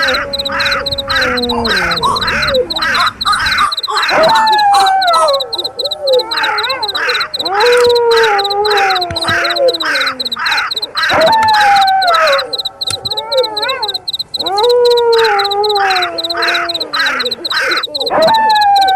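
Layered night animal sounds: crows cawing in rapid runs, long falling wolf howls returning every three to four seconds, and a high, steady cricket chirping underneath.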